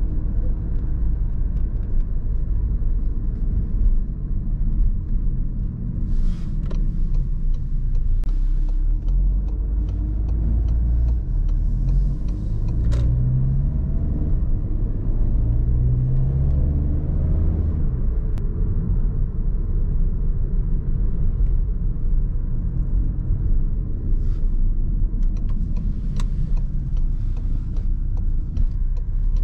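Car driving in city traffic: a steady low rumble of engine and road. In the middle the engine note rises several times as the car accelerates. A few short clicks are scattered through it.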